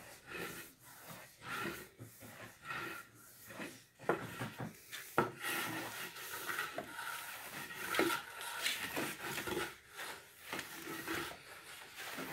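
Long-handled rake scraping and stirring cassava flour across the flat pan of a wood-fired flour oven, in repeated rasping strokes of about one a second, with a few sharper knocks. The flour is at the start of drying and toasting.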